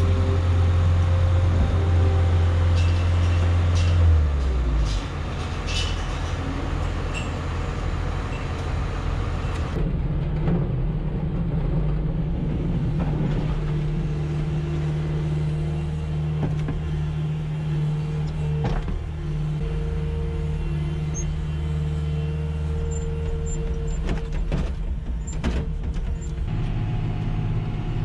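Skid-steer loader's diesel engine running steadily, heard from its cab, with its note shifting a few times and occasional clanks. Near the end a tractor engine takes over.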